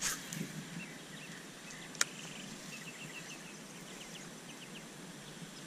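A cast with a baitcasting rod and reel: a brief swish right at the start as the line goes out, then a single sharp click about two seconds in, fitting the reel engaging for the retrieve. After that, quiet outdoor background with a series of faint, short, high chirps.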